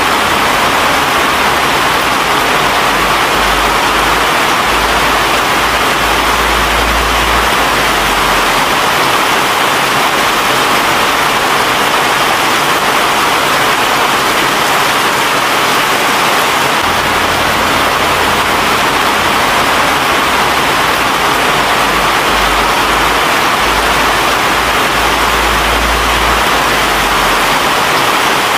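Steady, loud rushing noise with no pitch or rhythm, and a low rumble that comes and goes beneath it.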